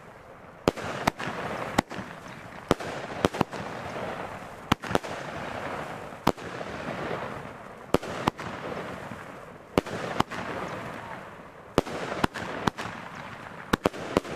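Argento Ultramarin 13-shot, 30 mm firework battery firing: a string of sharp bangs from shots launching and shells bursting, unevenly spaced and sometimes in quick pairs, with a steady hiss between them.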